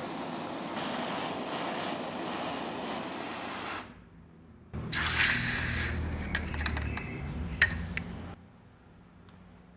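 Handheld gas torch flame hissing steadily for about four seconds. About five seconds in, a sudden louder hiss with a low rumble comes in and dies away over the next three seconds, with a few clicks.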